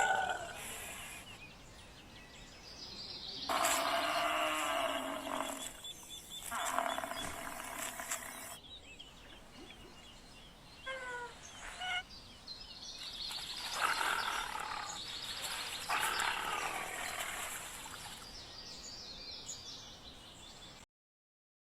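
A series of animal calls, several separate cries each about two seconds long, with a few short falling chirps about eleven seconds in. The sound cuts off abruptly shortly before the end.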